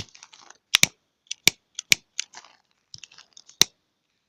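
Sharp, irregularly spaced clicks from a multi-flame jet torch lighter being worked, about half a dozen over four seconds.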